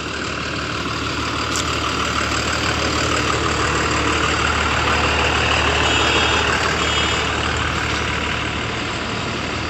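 Heavy truck's diesel engine idling: a steady low rumble that swells toward the middle and eases off again.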